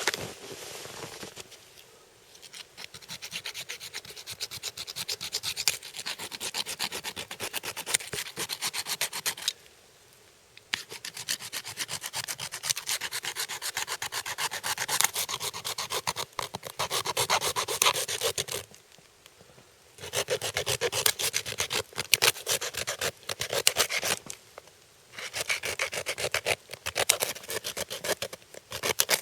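A blade sawing through a deer's rib bones in long runs of quick rasping back-and-forth strokes, with short pauses between runs.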